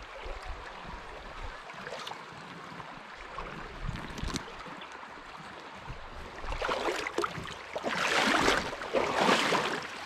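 Fast river water rushing over a riffle, then, from about six and a half seconds in, three loud splashes as a hooked trout thrashes at the surface.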